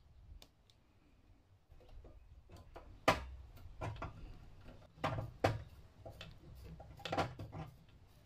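Handling noise from fitting a gas hose and clamp to a stainless-steel tabletop gas stove: irregular clicks and sharp knocks as the stove body is tipped and moved on the counter. The loudest knock comes about three seconds in.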